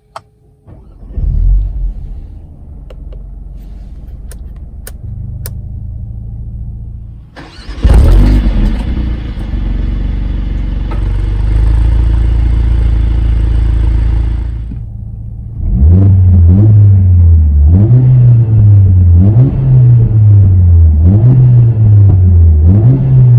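Mercedes-AMG A45 S's turbocharged 2.0-litre four-cylinder (Stage 1 tune) starting with a flare of revs, settling to idle, then running louder and steady for several seconds. From about two-thirds of the way in it is blipped over and over, the revs rising and falling about once every second and a quarter.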